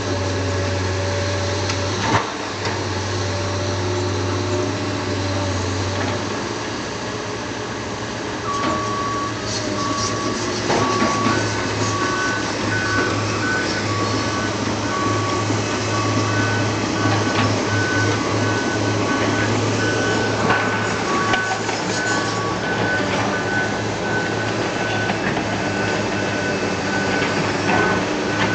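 Heavy work vehicles running with a steady low engine hum, and two reversing alarms beeping at two different pitches. The lower one starts about a third of the way in and stops before the end, and the higher one starts a few seconds later and keeps going.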